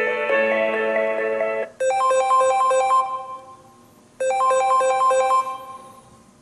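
Samsung Galaxy S21 ringtones. A melody of several notes stops about a second and a half in. Then a new ringtone plays a quick run of repeated chiming notes, twice, each phrase lasting about a second and dying away before the next.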